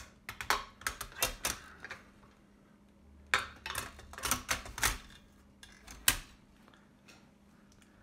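Densmore No. 4 typewriter's metal mechanism clicking and clacking as it is handled. A quick run of sharp clicks comes in the first two seconds, another from about three to five seconds in, and a single click about six seconds in.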